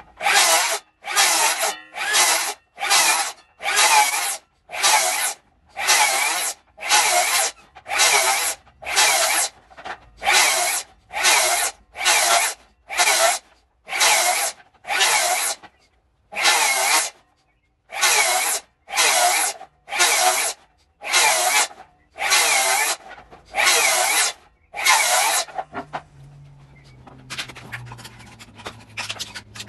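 Hand saw cutting through green oak: about two dozen rasping strokes, roughly one a second with a short pause between each, stopping about 26 seconds in.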